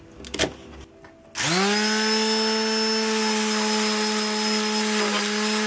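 Bosch PSM electric detail sander switched on about a second and a half in, spinning up quickly to a steady buzz as it sands black spray paint off a carved pine board; a couple of knocks come just before it starts.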